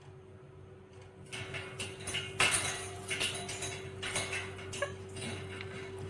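Indian ringneck parrot chewing and gnawing at a small object with its beak: a run of irregular scratchy clicks and crunches starting about a second in, over a faint steady hum.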